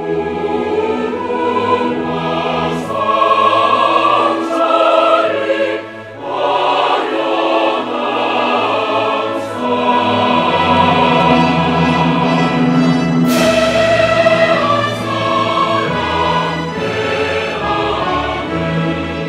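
Background music: choral singing over an orchestra, in long held notes.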